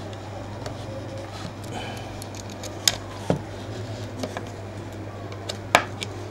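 Small clicks and taps of a tiny screw and a sheet-metal strap being handled against a plastic toy boat hull, with a few sharp clicks about three seconds in and again near six seconds, over a steady low hum.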